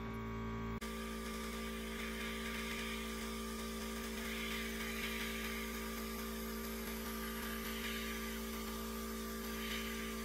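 Airbrush spraying paint: a steady hiss of air and paint that starts suddenly about a second in, over a constant low hum.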